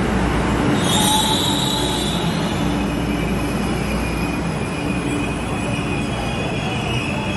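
MTR East Rail line electric train running into the station and slowing to stop, its wheels and brakes squealing over a steady low rumble. The squeal comes in about a second in as a high steady tone, then drops a little in pitch and keeps on.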